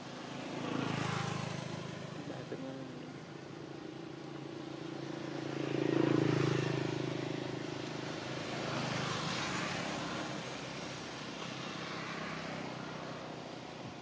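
Engine noise of motor vehicles passing by, a low hum that swells and fades several times and is loudest about halfway through.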